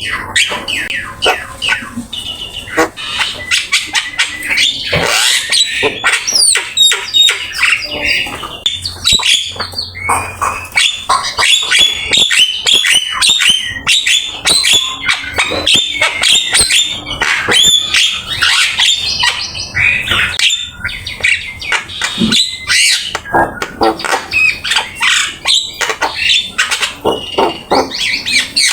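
Javan myna singing without pause: a rapid, unbroken stream of chattering squawks, chirps and whistled notes, full of mimicked phrases.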